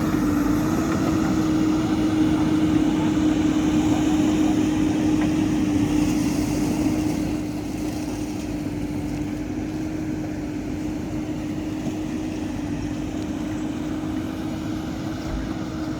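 JCB backhoe loader's diesel engine running steadily with a constant hum, easing a little in loudness about seven seconds in.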